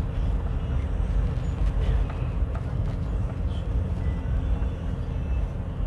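Vehicle engine running steadily with a low road rumble while climbing a steep zigzag road.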